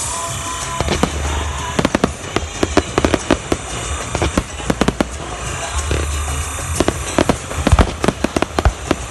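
Fireworks display: a rapid, irregular run of sharp cracks and bangs from bursting shells, with one heavier, deeper boom about three-quarters of the way through.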